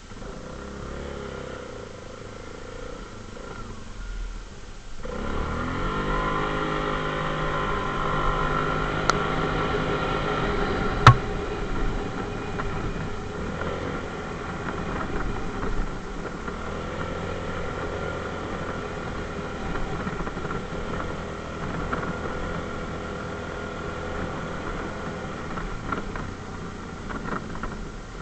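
ATV engine running, picking up revs about five seconds in and holding a higher, steady speed, with one sharp click about a third of the way through.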